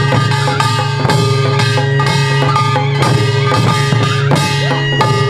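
Korean folk drumming for the Jindo drum dance: buk barrel drums struck with sticks in quick, dense strokes, with a held melodic line and a steady low drone sounding over the beat.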